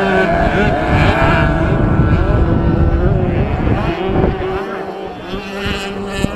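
Several 65cc two-stroke motocross bikes revving hard through a dirt corner, their engines rising and falling in pitch over one another. The sound gets quieter after about four and a half seconds as the bikes ride off.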